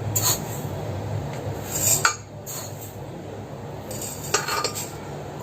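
Kitchen vessels and utensils clinking and knocking a few times, over a steady low hum.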